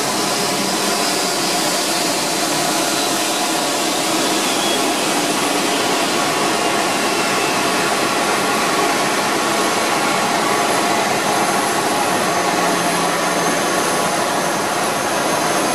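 Loud, steady jet turbine noise: an even rush with a faint high whine held on top, unchanging throughout.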